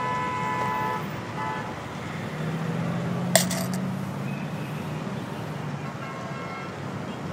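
Steady city street traffic hum. The ring of a coin dropped into a tin can dies away over the first second or so, and a second sharp clink with a short ring comes about three and a half seconds in.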